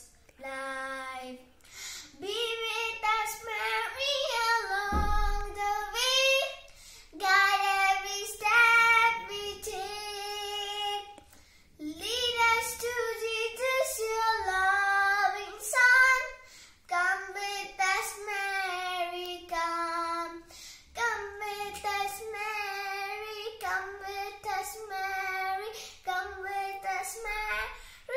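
A young girl singing a hymn to Mary solo and unaccompanied, in held phrases with short breaths between them. A brief low thump about five seconds in.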